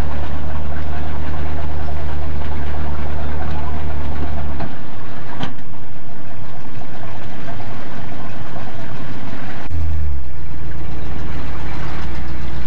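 Pickup truck engine running at idle close by, under a loud steady low rumble that drops out about four and a half seconds in and comes back near ten seconds. A single sharp click about five and a half seconds in.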